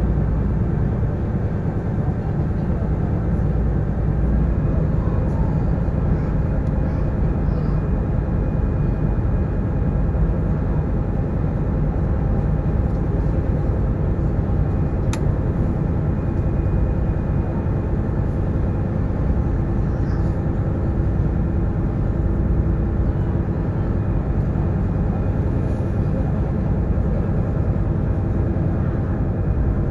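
Sightseeing boat's engine running steadily, heard on board as a constant low rumble with a steady hum over it. One short sharp tick about halfway through.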